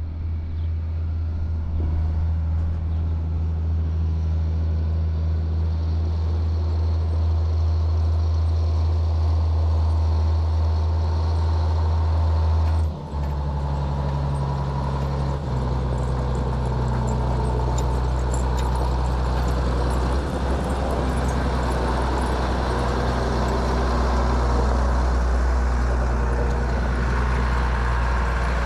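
Large farm tractor's diesel engine running steadily while pulling a loaded manure spreader, its pitch stepping to a new steady level twice about halfway through.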